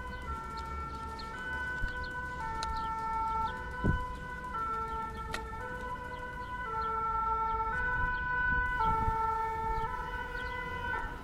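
Two-tone emergency-vehicle siren, the French "pin-pon" kind, alternating steadily between two notes about a whole tone apart, roughly once a second. It swells a little louder after the middle.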